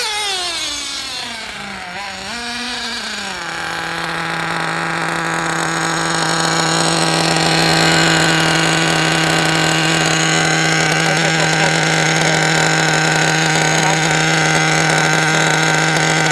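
Argus R83 3.5 cc nitro engine in a 1/8 off-road buggy, being run in. Its pitch falls and wavers for about the first three seconds as the car slows, then it idles at a steady pitch.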